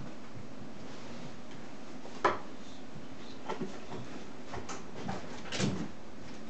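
A few scattered knocks and clicks over steady low room noise, the loudest about two seconds in and a small cluster near the end: a musician handling his guitar and stage gear.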